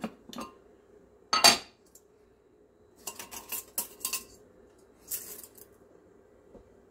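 Metal spoon clinking against ceramic dishes: a sharp clatter about a second and a half in, a run of quick clinks a couple of seconds later, then a short scrape.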